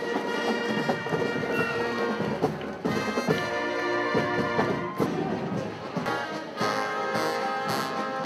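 Brass band music: horns playing held notes and chords, with the notes changing about three seconds in and again past six seconds.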